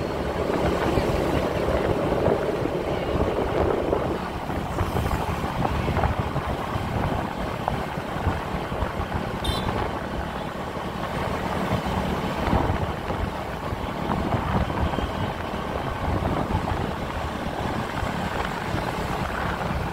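Street traffic and engine noise heard from a moving motorbike, a steady mix with a fluttering low rumble and a brief high chirp about nine and a half seconds in.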